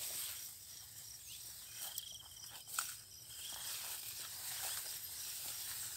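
Rice plants rustling and brushing as someone pushes on foot through a paddy field, over a faint steady chirring of insects. A short trill sounds a couple of seconds in.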